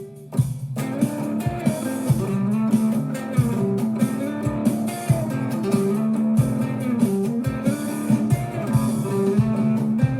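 Background music led by a plucked guitar, with a steady beat.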